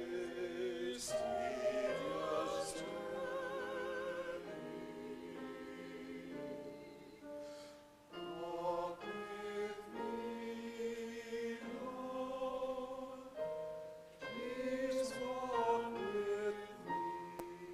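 A small church choir singing together in parts, with vibrato, its phrases broken by short pauses about eight and fourteen seconds in.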